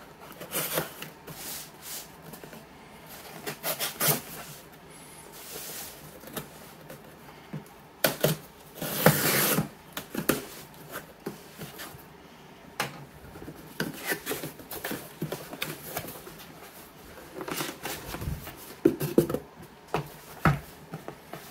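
A package being handled and opened by hand: irregular taps, clicks and rustling scrapes of cardboard and wrapping, with a longer rasping rub about nine seconds in.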